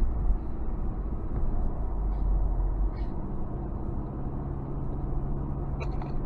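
Steady low rumble of a moving vehicle. A steady engine hum comes in about three seconds in, and there are a few faint clicks near the end.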